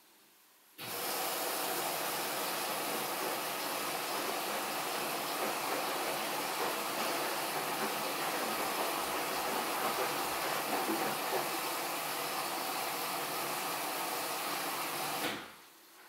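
Haier HW80-B14979 front-loading washing machine taking in water: a steady rushing hiss that switches on suddenly about a second in and shuts off shortly before the end, as the inlet valve opens and closes.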